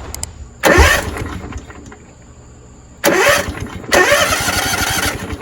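A propane floor buffer's engine being cranked by its electric starter in three short bursts, about a second in, about three seconds in and just after four seconds, without catching and running: the engine is not getting propane.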